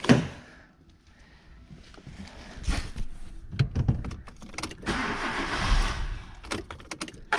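A partly warmed-up Kia car engine being started: a few clicks and knocks, then the starter cranking about five seconds in, with the engine catching and running near the end.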